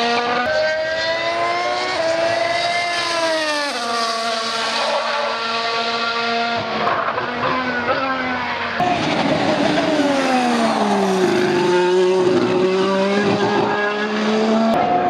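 Formula 1 cars' V6 turbo engines running on track, the engine note rising and falling through gear changes. The pitch drops in steps as a car brakes down through the gears, and the sound changes abruptly about nine seconds in.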